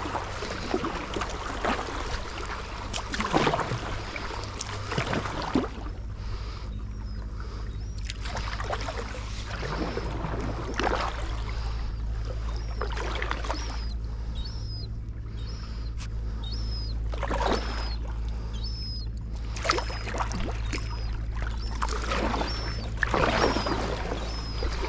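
Kayak paddles dipping and splashing in river water in irregular strokes over a steady low hum. From about six seconds in, a faint high chirp repeats roughly once a second.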